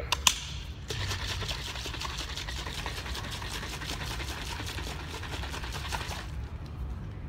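Plastic protein shaker with water and powder being shaken hard for about five seconds, the liquid sloshing in quick, even strokes. It starts just after a sharp click.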